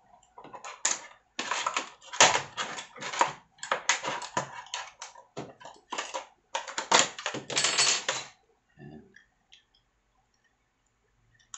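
Stiff clear plastic blister packaging crackling and crinkling in irregular bursts as a hand riveter is pulled out of it. The crackling stops about eight seconds in, leaving a few faint clicks.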